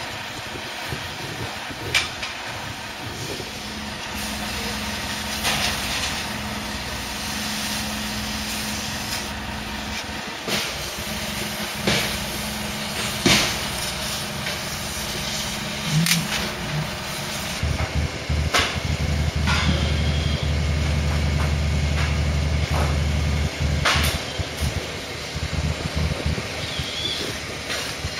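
A truck-mounted crane's engine running steadily at idle, with scattered sharp metal clanks and knocks from work on a railcar being scrapped. About two-thirds of the way through, a deeper, heavier engine hum takes over.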